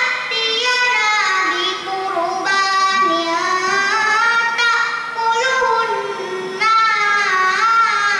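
A young girl chanting a Quran recitation (tilawah) into a microphone, in long melodic phrases with gliding ornaments, with a fresh phrase beginning after a short break about six and a half seconds in.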